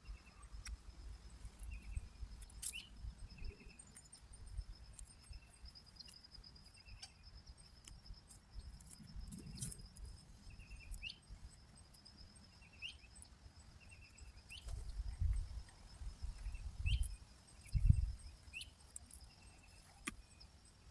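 Yard ambience: a steady high insect trill under a bird's short, sharp chirps repeated every second or two. Low rustling and thumps from hands pulling weeds in a garden bed come and go, loudest near the end.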